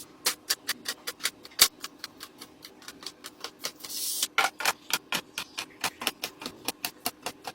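Rapid light clicks and taps, several a second, from items being handled and set into place during a restock, with one sharper knock about a second and a half in and a short hiss about four seconds in.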